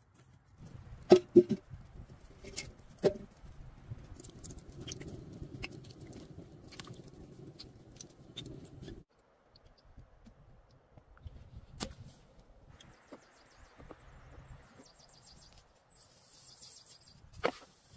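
Split firewood knocking and clattering as pieces are laid on a stone fire ring, a few sharp knocks close together early on, followed by quieter scattered handling sounds of outdoor cooking.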